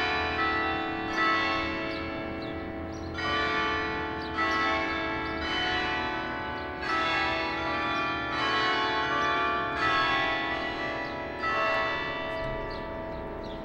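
Church bells ringing, a fresh stroke about once a second, each ringing on and overlapping the one before.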